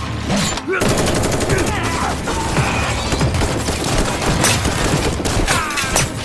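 Rapid automatic gunfire, a dense run of shots starting about a second in and keeping on, with shouted cries over it.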